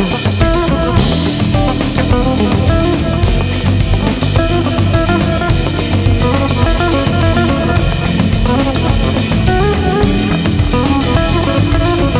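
Background music with drums and guitar playing a steady beat.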